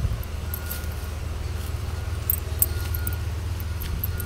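Footsteps on a stony, muddy riverbank with scattered light clicks and clinks, over a steady low rumble.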